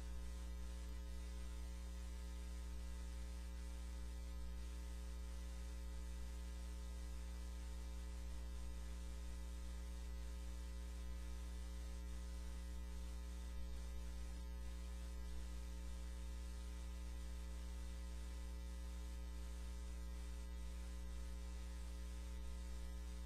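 Steady electrical mains hum with its overtones and a faint hiss, unchanging throughout.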